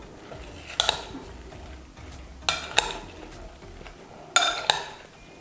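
Metal spoon stirring a sour-cream-dressed radish salad in a glass bowl, clinking against the glass in three pairs of sharp clinks.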